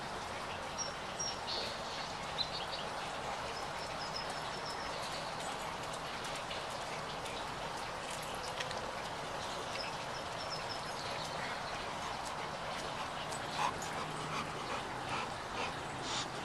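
Dogue de Bordeaux (French mastiff) sniffing about, over a steady background hiss, with a run of short snuffles and clicks in the last few seconds as it comes up close.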